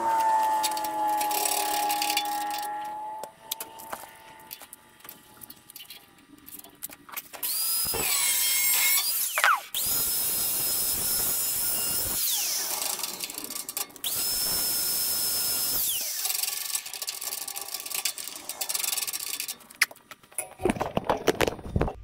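Angle grinder with a cut-off wheel, spun up with a rising whine and then cutting through steel bolt ends in two bursts of a couple of seconds each, the whine falling away after each cut. Before that, a lower motor whine winds down over the first few seconds.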